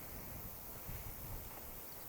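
Wind buffeting a chest-clipped DJI wireless microphone in strong gusts, heard as uneven low-pitched noise that swells and eases.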